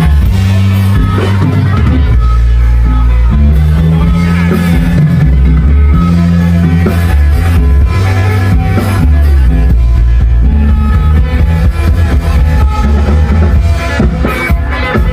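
Thai molam band playing: a steady, driving bass line and drum kit under a plucked string lead.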